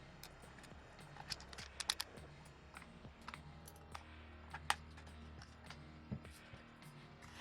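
Irregular light clicks and taps over faint background music.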